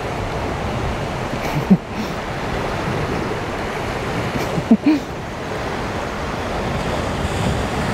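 Sea waves washing against a rocky shore, a steady rushing noise, with two brief short sounds about two and five seconds in.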